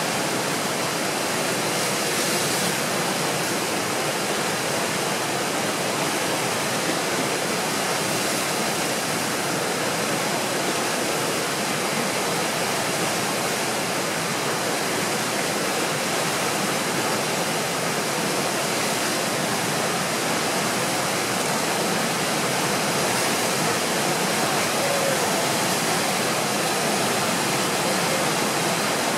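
Tidal rapids rushing steadily, the whitewater of a large standing wave churning over the rocks during a very large tidal exchange.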